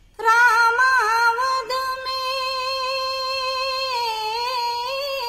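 A woman singing a Hindi devotional bhajan, starting a line just after a brief pause and holding one long note with a slight vibrato.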